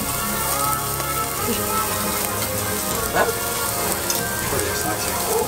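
Pork belly and beef slices sizzling on a tabletop yakiniku grill plate, a steady frying hiss.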